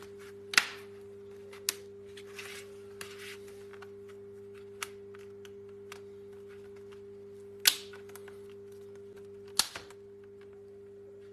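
Plastic snap clips of a laptop screen bezel popping free as a plastic pry pick works along its lower edge: a handful of sharp clicks, the loudest about half a second in, near eight seconds and near ten seconds, with a brief scrape of the pick between them. A steady low hum runs underneath.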